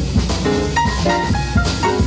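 Jazz ensemble playing, with a drum kit keeping time under a bass line and held melodic notes.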